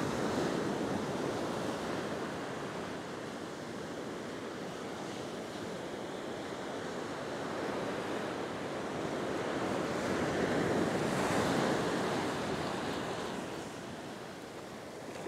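Surf washing onto a beach in a steady rush that swells louder about ten seconds in and then eases off, with some wind on the microphone.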